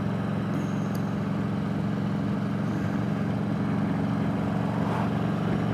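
Touring motorcycle's engine running steadily at highway cruising speed, heard from the rider's seat with wind rushing over the microphone.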